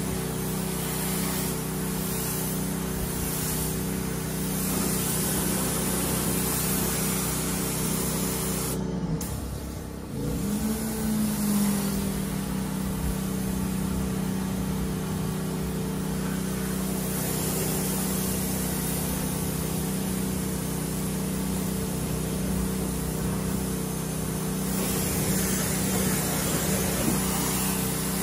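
Pressure washer spraying, its motor running with a steady hum under the hiss of the water jet. About nine seconds in the spray cuts off and the motor sags, then a second later it spins back up with a rising whine and the spray resumes.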